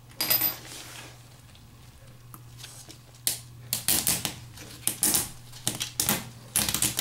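Small irregular clicks and scrapes of gloved hands fitting plastic washers and nuts onto brass closet bolts set in a plastic toilet flange. A quick cluster comes just after the start, then a run of clicks from about three seconds in, over a faint steady hum.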